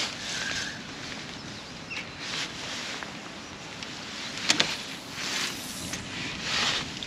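Several short rustling swishes with a low rumble beneath, and two sharp clicks about four and a half seconds in.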